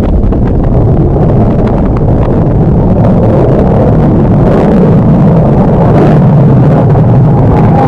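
Loud, steady rumble of a fighter jet's engine, with a low drone that climbs slightly in pitch near the end.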